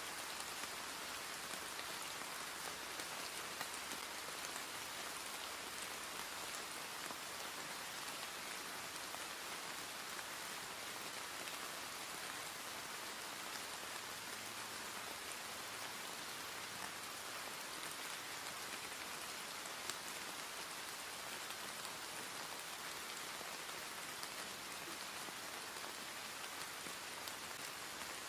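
Steady rain falling and pattering on a surface, an even hiss with scattered small drop ticks.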